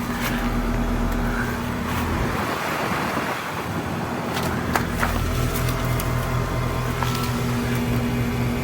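Outdoor heat pump units running: a steady electrical hum from the compressors with the rush of the condenser fans. A broader rushing noise swells and fades between about two and four seconds in.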